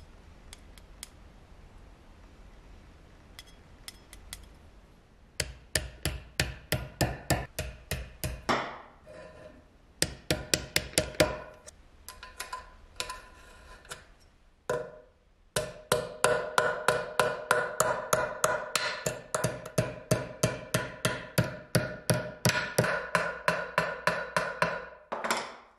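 A small hammer tapping sheet-metal tin-toy parts against a steel plate clamped in a bench vise, about four quick blows a second, each ringing metallically. The blows come in runs with short pauses, after a few faint clicks at the start.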